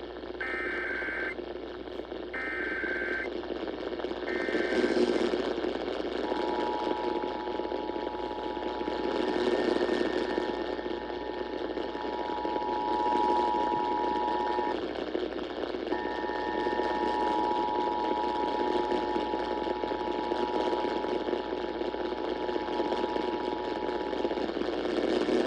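Emergency Alert System tones received over AM radio. First come three short bursts of warbling SAME header data a second apart, then the two-tone EAS attention signal sounds steadily, dropping out for about a second midway. Hiss and static from the AM reception lie under it all. This is the header and alert tone of a required monthly EAS test.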